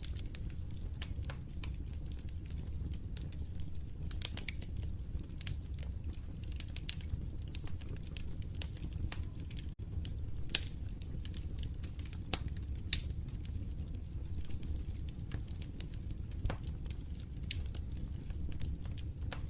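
Log fire in a fireplace crackling continuously, with scattered sharp pops, a few louder than the rest, over a steady low rumble of burning. The sound cuts out for a split second about ten seconds in.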